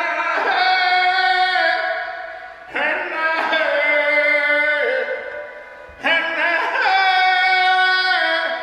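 Wordless singing in long held tones rich in overtones, a new phrase starting suddenly about every three seconds, each sliding down in pitch near its end.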